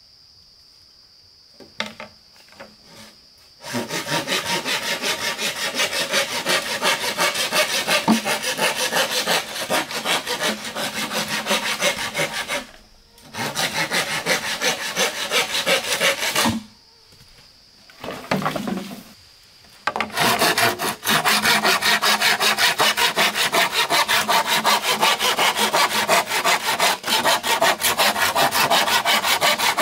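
Hand saw cutting wood in quick, even back-and-forth strokes, in three long runs broken by short pauses about 12 and 17 seconds in. A few light knocks come before the sawing starts, about two seconds in.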